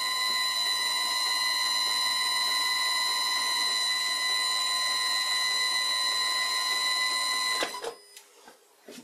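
Old Karger metal lathe running, a steady high-pitched whine with many overtones, switched off about seven and a half seconds in.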